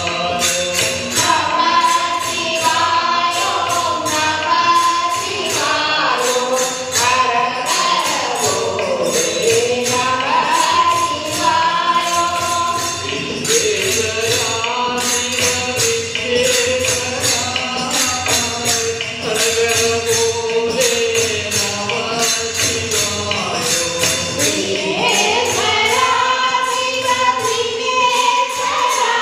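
Hindu devotional bhajan sung by a group of voices on one melodic line. A steady jingling percussion beat and tabla accompany it.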